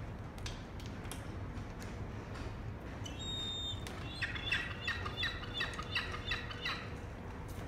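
Juvenile herring gull calling: a short high whistle, then a quick run of about ten high, piping calls at roughly four a second, which stops abruptly near the end. A few faint clicks come earlier.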